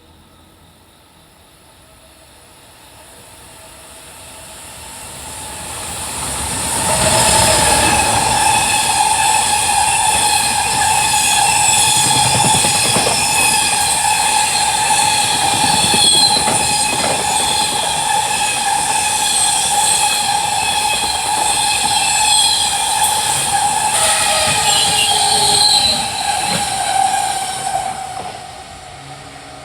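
A freight train passing at speed: it approaches, runs by loud for about twenty seconds with steady ringing tones over the rolling noise of its wagons, then fades away near the end.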